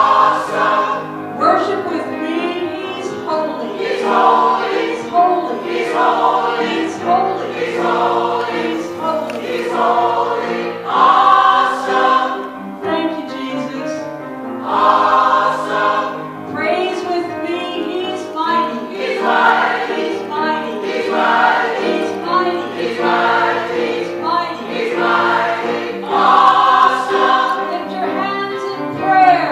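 Gospel choir singing in full harmony, with many voices sustaining and moving between notes continuously.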